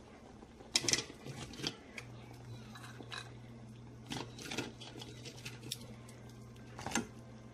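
Crab shells clicking and knocking against a pan as whole cooked crabs are set into simmering coconut milk: a handful of sharp clicks spread through, the clearest about a second in and near the end. A faint low steady hum joins about two seconds in.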